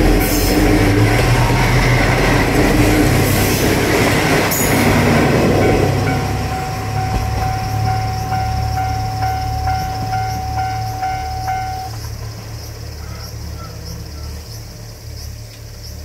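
Diesel railcar train running over a level crossing, its rail and wheel noise fading away about 6 s in. A level-crossing bell keeps ringing, a steady tone with a repeating beat about twice a second, and stops about 12 s in as the crossing clears.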